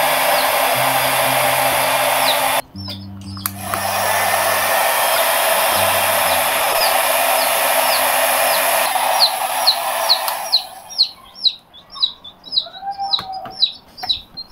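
Hair dryer blowing, switched off for about a second near the 3-second mark, then back on until it is turned off about 10 seconds in. A baby chick peeps over it, a quick run of short, downward-sliding peeps that are clear once the dryer stops.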